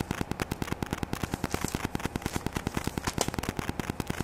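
Rapid, even clicking buzz of electrical interference on an external microphone, about a dozen clicks a second: the known interference from a GoPro camera running with its wifi on.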